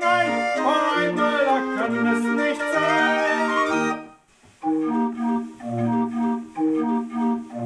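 Raffin R31/84 barrel organ playing the melody of a German folk song. The music breaks off for about half a second midway, then the organ starts again with steady held notes.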